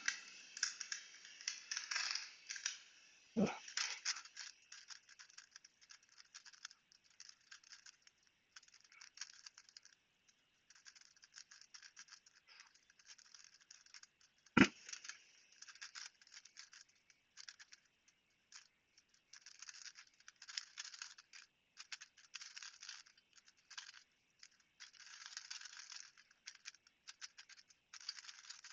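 Plastic Rubik's cube being turned by hand: quick clicking and rattling of its layers in bursts with short pauses. Two sharp knocks, one about three seconds in and a louder one about halfway through.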